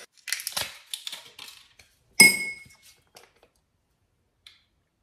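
Crackling and scraping as the cap is twisted off an amber glass bottle, then one sharp glass clink with a brief ringing about two seconds in, and a faint click near the end.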